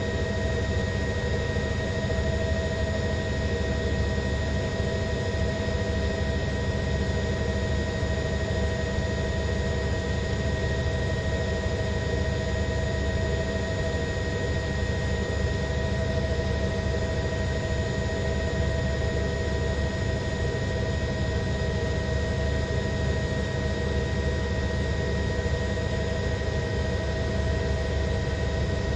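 Steady news-helicopter engine and rotor noise, unchanging throughout, with a constant high whine over the roar.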